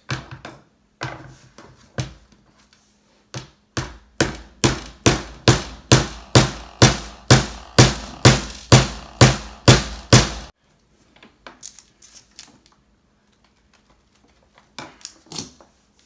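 Small claw hammer driving a short nail into a wooden table-tennis paddle: a few taps, then a steady run of about eighteen strikes, roughly three a second, then a few light taps.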